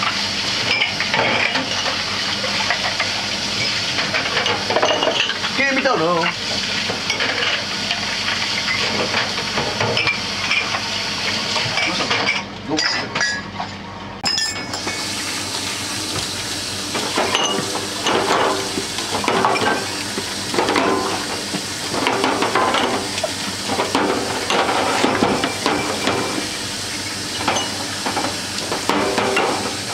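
Tap water running and splashing into a stainless steel bar sink while drinking glasses are rinsed, with frequent clinks of glass against glass and against the sink. The water cuts out for about two seconds near the middle, then starts again.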